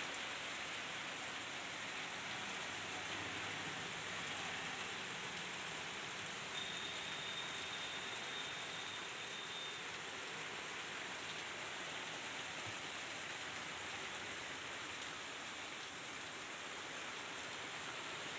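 Heavy rain pouring steadily onto a road and pavement, with water splashing down from an awning. The hiss is even throughout.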